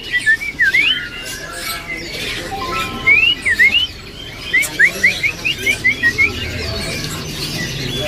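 Caged songbird singing phrases of quick whistled notes that slide up and down, in three bursts with short pauses between them.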